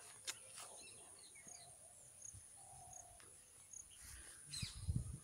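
Birds chirping here and there over a steady high-pitched insect drone, with a few low thumps near the end.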